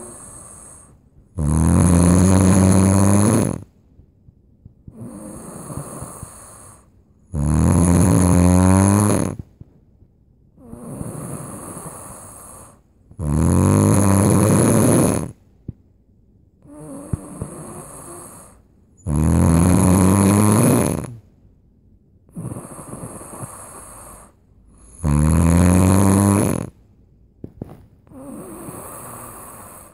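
A sleeping person snoring loudly: five long, rasping snores on the in-breath, one about every six seconds, each followed by a quieter breath out.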